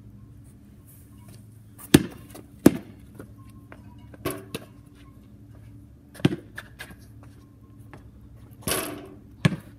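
Basketball bouncing on a concrete driveway and banging off the backboard and rim: about seven sharp thuds scattered through, a second or so apart, with a brief rustling sound just before the last one.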